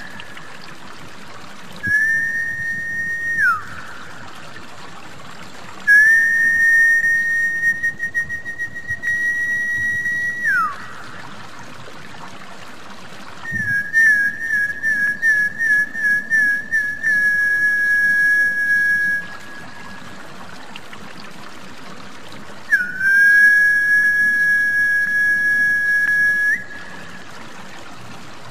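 Whistle call for luring snakehead fish: four long, high whistles held on a nearly steady pitch. The second and third waver into a trill for a few seconds, and the first two end in a quick falling glide. Under the whistles runs a steady trickle of water.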